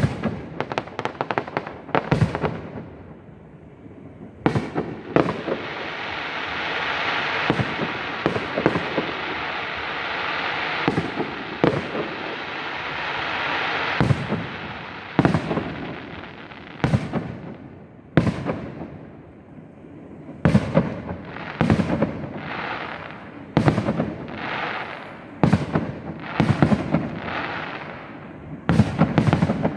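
Fireworks display: a rapid series of sharp aerial shell bursts, with a stretch of continuous crackling hiss from about five to fourteen seconds in, then further bangs, each trailing off in crackle.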